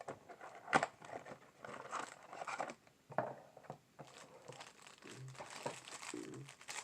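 Packaging of a trading-card hanger box crinkling and tearing as it is opened by hand, in irregular rustles with a few sharper snaps.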